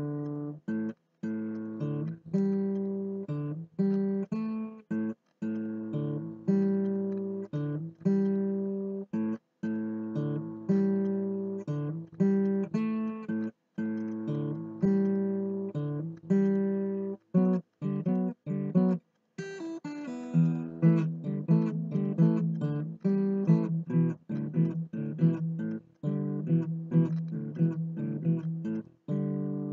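Acoustic guitar music: strummed chords, each left to ring and fade, with a brisker strumming pattern from about twenty seconds in.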